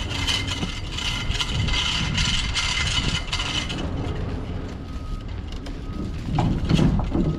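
Hand chain hoist ratcheting: a steady run of clicks, about three a second, for the first four seconds, then stopping. A few knocks and a heavier thud near the end.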